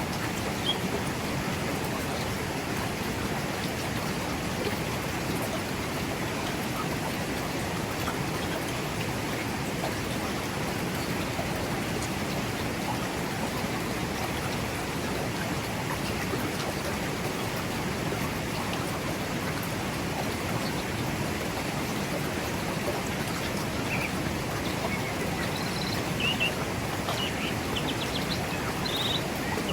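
Mountain forest river flowing over rocks: a steady, even rush of water. A few short bird chirps come near the end.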